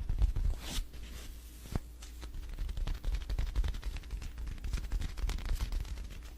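Close-up crunching and chewing of a crunchy snack: a rapid run of small cracks with a few sharper snaps, louder in the first second.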